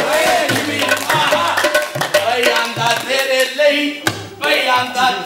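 Men singing a Punjabi folk song in qawwali style over a hand drum beating a steady rhythm.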